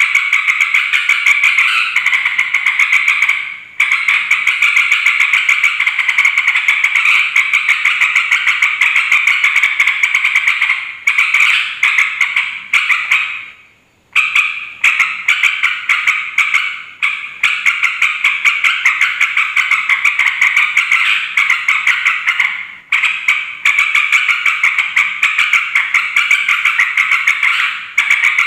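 Yellow-vented bulbul (trucuk) chattering noisily, a dense unbroken stream of rapid, buzzy notes. It breaks off briefly about four seconds in, halfway through, and again about two-thirds of the way through.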